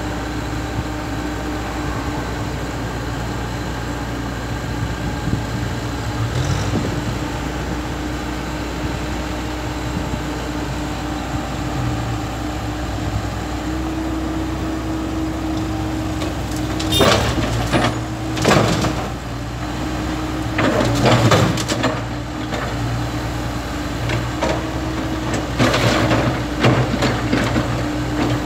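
Komatsu PC70 hydraulic excavator's diesel engine running steadily, with loud crashes and scraping starting a little past halfway, several times over, as the bucket handles broken concrete slabs.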